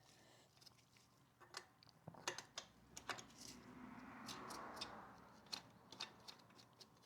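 Faint scattered metallic clicks, with a soft rubbing sound swelling and fading in the middle, from hands working the motorcycle drive chain at its master link.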